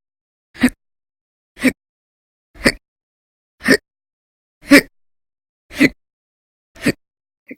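A woman's loud, violent hiccups in a persistent bout, coming at an even pace of about one a second. Seven sharp hiccups, with a weaker one near the end.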